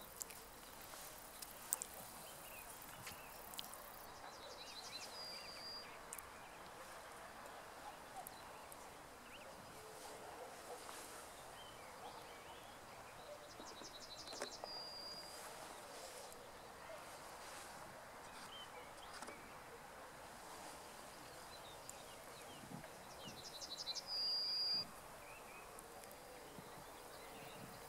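Faint outdoor background noise, with a bird singing the same short phrase three times about ten seconds apart: a quick run of short high notes ending in one longer held note. The last phrase is the loudest.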